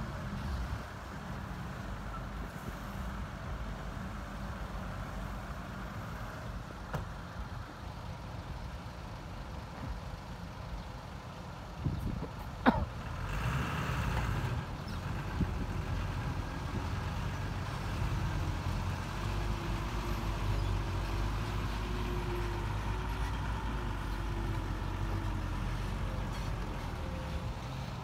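Diesel engines of a CAT excavator and a dump truck running steadily while soil is loaded. About halfway through comes a short sharp squeal and a hiss of air, typical of a truck's air brakes being released. After it the truck engine runs louder as the loaded truck pulls away.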